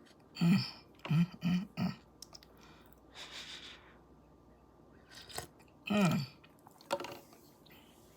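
A woman tasting hot coffee: a short hummed vocal sound about half a second in and three quick ones between one and two seconds. A breathy hiss of air comes near the middle, and a longer vocal sound with a falling pitch comes about six seconds in.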